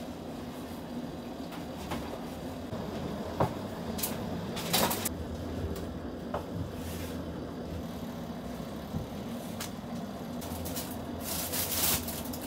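Kitchen work at a steel counter: a few knocks and short rustles of paper and meat being handled, over a steady low hum of kitchen machinery.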